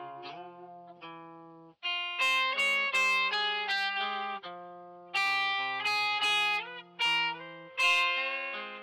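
Background music: a plucked guitar playing a melody of ringing single notes, quiet at first and louder from about two seconds in.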